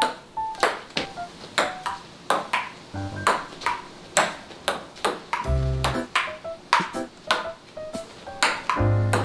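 Table tennis ball clicking sharply off paddles and the wooden table in a rally, about two hits a second, over background music with bass notes that come in about midway and near the end.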